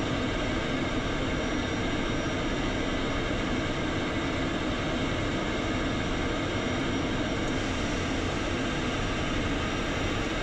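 Embraer Phenom 300E's turbofan engines running, heard inside the cockpit as a steady rush with faint steady whines. Engine number 1 is mid-start just after light-off, with number 2 already running.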